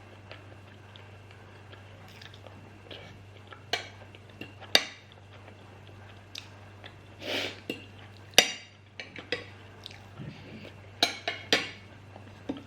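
Close-miked eating of curry and rice: chewing and mouth sounds, with a few sharp clinks of tableware, the loudest about five and eight and a half seconds in and a quick cluster near the end.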